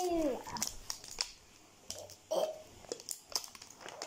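Plastic film wrapping on a large toy egg package being picked at and pulled off by hand, giving scattered crinkles and small tearing sounds. It opens with a child's brief vocal sound that falls in pitch.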